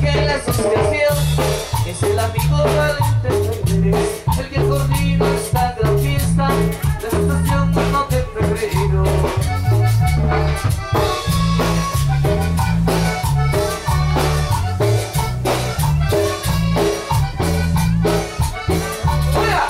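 Upbeat Latin dance music: a marimba melody over a steady bass line and drum-kit beat.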